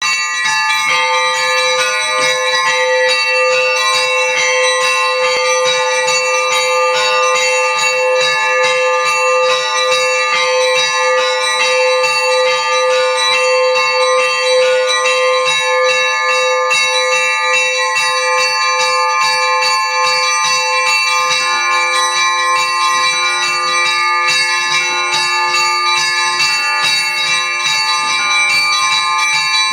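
Orthodox church bells rung together in a continuous peal (zvon). Several bells of different pitches ring at once, one struck in a quick, steady rhythm, and the bell pattern changes about two-thirds of the way through.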